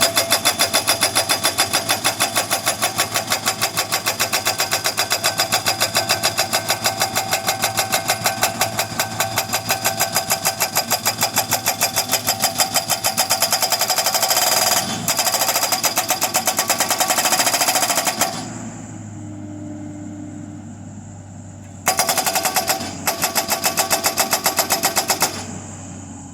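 Montana post driver hammering a fence post into the ground: rapid, evenly spaced blows, about three or four a second, over its running engine. The hammering stops about 18 seconds in, leaving the engine running, resumes for a few seconds, and stops again near the end as the post is driven home.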